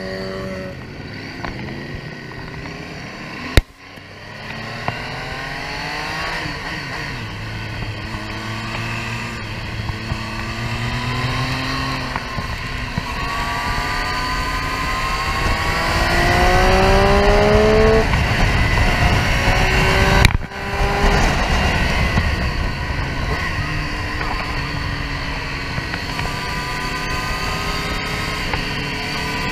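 Triumph Street Triple R's three-cylinder engine accelerating through the gears on track, its pitch rising in repeated runs between shifts, over a steady rush of wind noise. Two sharp knocks, about 4 and 20 seconds in, each followed by a brief drop in sound.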